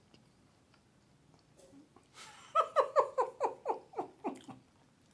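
A person laughing in a quick run of about ten high-pitched pulses, each dipping in pitch and the run fading out, starting about two and a half seconds in.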